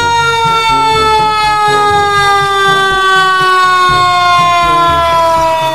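Fire truck siren sound: one long siren tone sliding slowly and steadily down in pitch.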